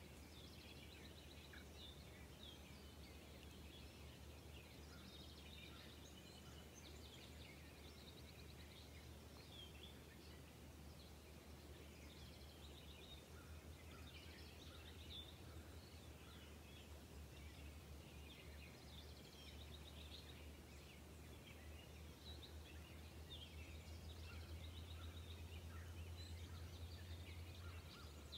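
Faint outdoor ambience of small birds chirping and trilling on and off, over a low, steady hum.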